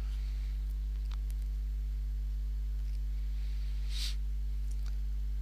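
Steady low electrical hum in the recording, with a few faint computer keyboard clicks as keys are typed.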